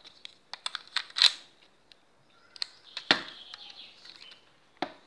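Plastic clicks and clacks of a Lego brick pistol and its loose parts being handled: a quick run of sharp clicks in the first second or so, then a few single clicks about three seconds in and near the end.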